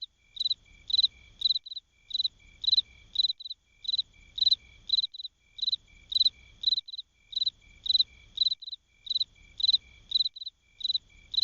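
A cricket chirping steadily: short, high, clear chirps about two a second, some followed by a softer chirp.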